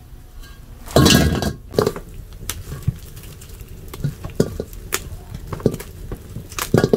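Strings of dried persimmons knocking and rustling against an enamel basin as they are handled, with a louder clatter about a second in, then scattered light knocks.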